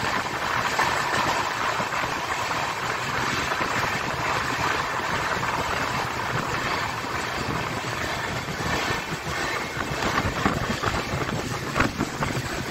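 Steady rushing running noise of a moving passenger train heard from on board, wheels on rails and air, with a few sharp clicks near the end.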